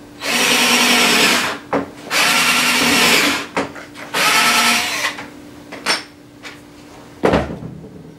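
Power drill drilling holes through a nameplate on a flag pole, in three runs of about a second each. A single sharp knock near the end.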